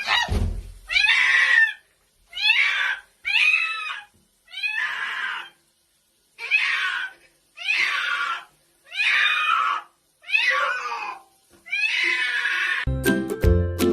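A cat meowing over and over, about nine drawn-out calls in a row with short pauses between them. A music jingle starts near the end.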